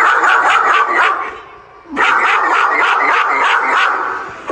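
A dog barking rapidly in two long runs of quick, high yaps, with a short pause about a second and a half in.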